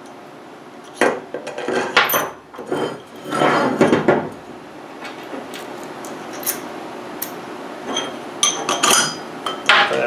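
Steel parts clinking and knocking as a bolt, washers and flat steel bars are handled and fitted through the bearing of a muller wheel. The knocks come irregularly, with a busy cluster a few seconds in and more near the end.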